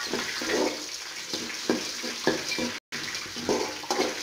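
A metal spatula stirs and scrapes peanuts, roasted gram dal and red chillies in hot coconut oil in an aluminium kadai, with repeated scrapes against the pan over a steady frying sizzle.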